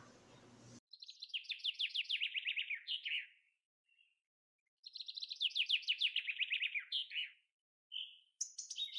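A songbird singing twice: each song is a fast trill of about two and a half seconds that falls in pitch and ends in a short flourish. A few short chips and calls follow near the end.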